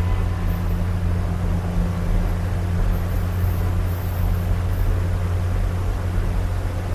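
Railroad passenger coach in motion, heard from inside its open end vestibule: a steady low rumble of the car rolling on the track, with an even hiss over it.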